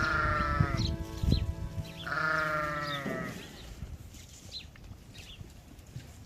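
Sheep bleating twice: two quavering calls, the first at the start and the second about two seconds in, each about a second long. After that it goes much quieter.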